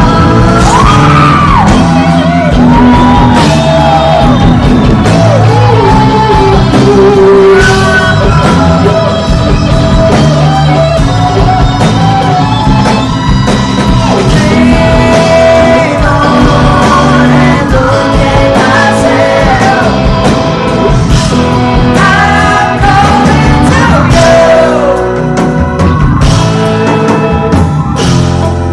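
Live rock band playing: a sung lead vocal over electric guitar and drums, loud and full throughout.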